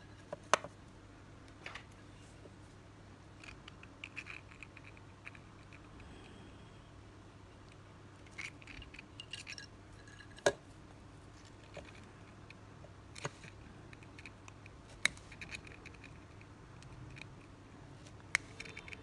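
Handling noise from a wire-wrapped metal fishing-hook rig and pliers: light scratching and rustling, with about half a dozen sharp clicks spread through. A faint steady low hum runs underneath.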